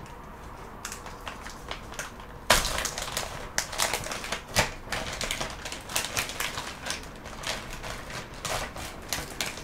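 A sealed packet being torn open by hand, with a sharp tear about two and a half seconds in. Dense, irregular crinkling and crackling follows as a hand rummages inside the packet.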